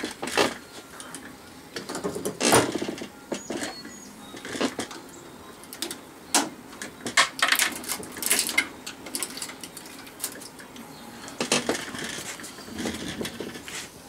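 Irregular metallic clinks, knocks and scrapes from hand tools working apart a vacuum cleaner motor, a screwdriver prying at it in a steel bench vise. The strongest knocks come a few seconds in and around the middle, some with a short ring.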